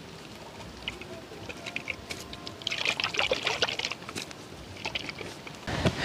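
Liquid pouring and trickling in short, uneven spurts, busiest around the middle.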